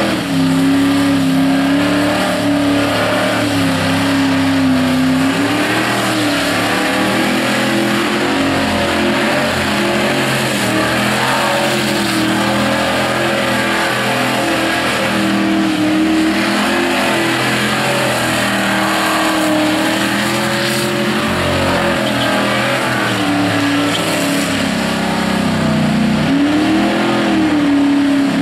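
Holden V8 engine of a VN Commodore wagon held at high revs through a burnout, the rear wheels spinning on the bitumen. The engine pitch wavers up and down as the throttle is worked, with a deep dip and climb back near the end.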